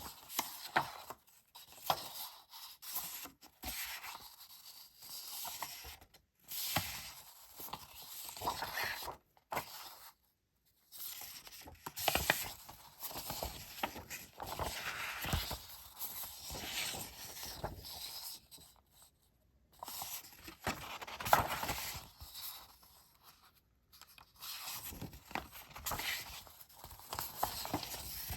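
Close-up paper rustling and crinkling from stationery and stickers being handled, in irregular bursts with brief pauses.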